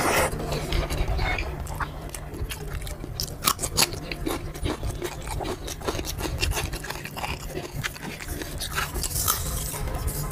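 Close-miked eating: chewing and wet mouth sounds with many sharp clicks, as rice is eaten by hand from a steel plate. A steady low hum runs underneath.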